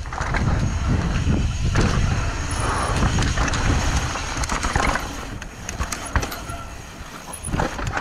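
Intense Tracer mountain bike descending a rocky dirt trail, heard from a camera on the rider: wind rumbles on the microphone while the tyres roll over dirt and rock and the bike rattles and knocks over bumps. It quietens for a couple of seconds about five seconds in, then picks up again near the end.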